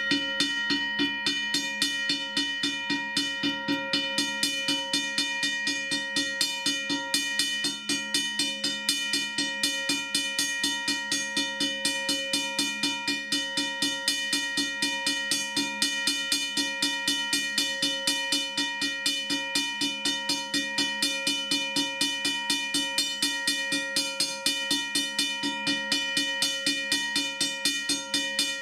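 Electromechanical railroad crossing bell ringing continuously. Its coil-driven striker hits the gong several times a second in an even rhythm, each stroke leaving a steady metallic ring.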